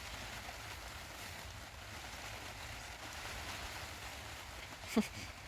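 Heavy rain falling, a steady even hiss, with one short sharp knock near the end.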